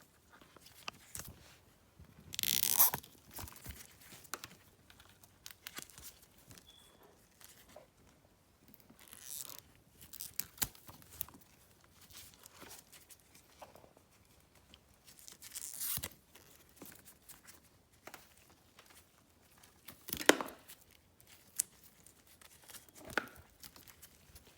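Hands handling a wiring harness and plastic parts: scattered rustling and scraping, with several louder bursts and sharp clicks.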